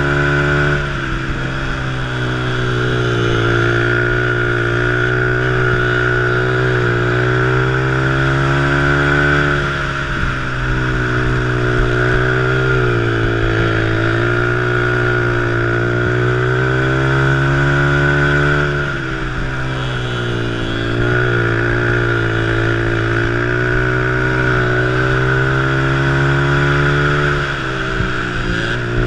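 A Honda ATC three-wheeler's engine at racing revs, heard from on board. Its pitch drops each time the throttle comes off for a turn, about five times, and climbs again on the straights.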